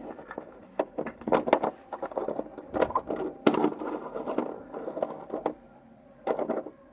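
Small hard-plastic clicks and clatters from a Kinder Surprise egg's plastic capsule and the little toy inside being handled, then a small plastic toy car pushed along a table, in a series of short, sharp bursts.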